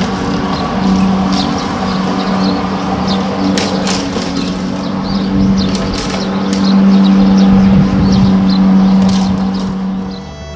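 Walk-behind lawn mower running steadily as it cuts grass. Its engine hum swells and eases as it moves about, and fades near the end. Short high chirps are scattered over it.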